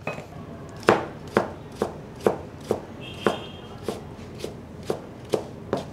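Chef's knife cutting through carrot onto a plastic cutting board: about eleven sharp chopping strokes at a steady pace of roughly two a second, slicing carrot into thin strips.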